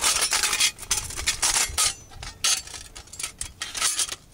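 Coghlan's steel folding camp stove being handled, its metal parts clinking and rattling in irregular clatters.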